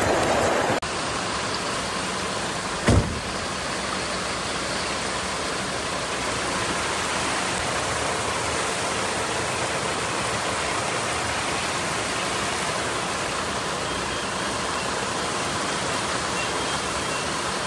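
Steady, even rush of floodwater running through a street, with one brief thump about three seconds in.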